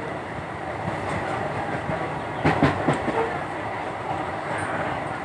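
Train running on the rails: a steady rumble, with a quick run of three or four sharp clacks of the wheels about halfway through.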